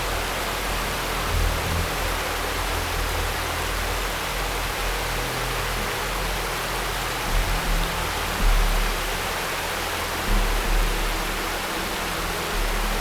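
Mountain river rushing: a steady, even noise.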